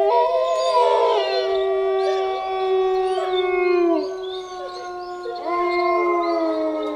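A dog howling in long, held notes that sag in pitch at their ends; one howl fades about four seconds in and another starts a little later.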